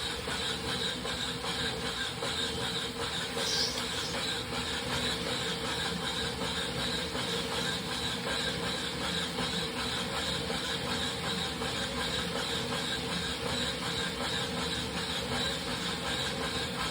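Wahoo Kickr Rollr smart roller trainer running under a rider, with a steady high squeal over the whirr of the rollers. The squeal is typical of the unit in its first minutes, before it warms up.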